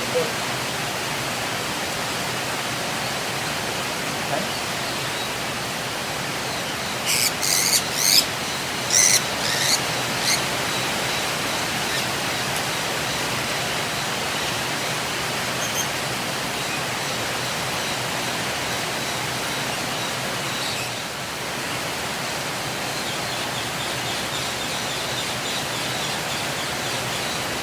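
Lovebirds shrieking: a burst of several short, sharp, high-pitched calls about seven to ten seconds in, over a steady rushing noise.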